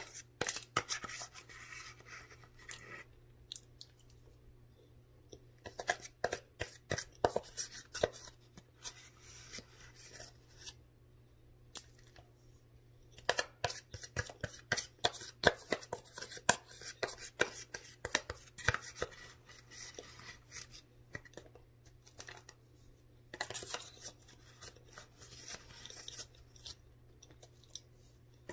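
Frozen cornstarch crunching as it is chewed close to the microphone: bursts of quick, crisp crunches with short pauses between.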